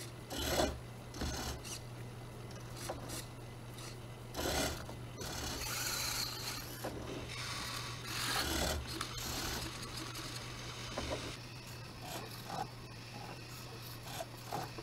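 Small hobby robot's servo and stepper motors and wheels moving, in short irregular bursts of mechanical noise, over a steady low hum.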